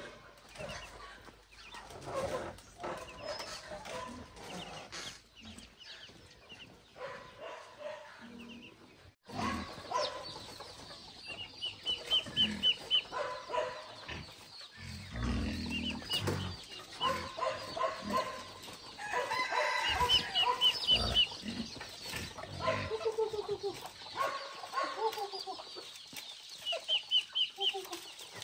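Domestic chickens clucking on and off, with short runs of rapid high chirps several times.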